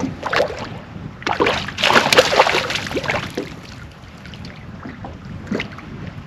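A hooked walleye splashing and thrashing as it is brought to the boat, in a loud burst of about two seconds starting a little over a second in, with shorter splashes before and after, over a low steady rumble.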